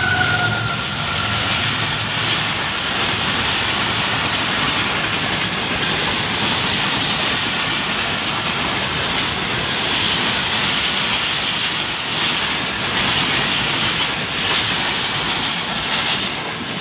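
Passenger coaches of a fast through train running past: a steady rush of wheels on rail with clickety-clack over the rail joints. The diesel locomotive's horn, a falling two-tone note, fades out in the first second. The sound drops as the last coach passes near the end.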